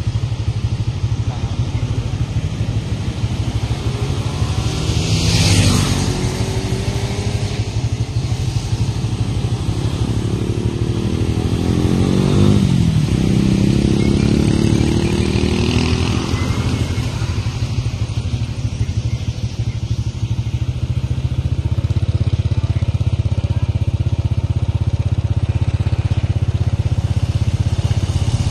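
Road traffic passing close by: motor tricycles, cars and a truck go by one after another over a steady low engine hum. There is a loud pass-by about five seconds in, and another around twelve seconds in whose engine pitch falls as it goes past.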